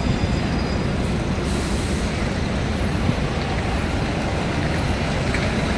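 Busy city street traffic: the steady rumble of buses, vans and cars idling and moving in the road, with a brief hiss about one and a half seconds in.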